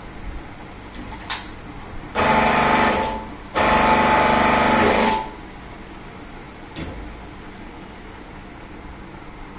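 Arrow electric hydraulic power pack's motor-driven pump running in two bursts of about a second and a half each, switched on and off by its foot pedal, driving the busbar bender's ram. A sharp click comes about a second before the first burst and another about a second and a half after the second.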